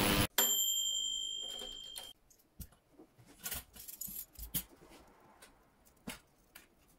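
A machine's steady running noise cuts off abruptly, followed by a high ringing tone that fades away over about two seconds. Then come faint scattered metallic clicks and rattles as a small wire-mesh parts basket is handled and opened by hand.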